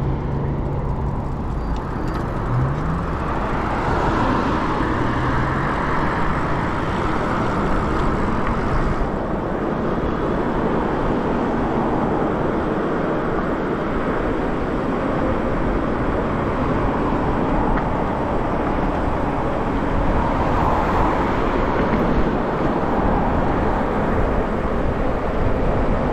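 Steady wind rush on the microphone and road noise from an electric bike riding along a busy highway, with traffic passing alongside. A brief rising whine sounds about two and a half seconds in.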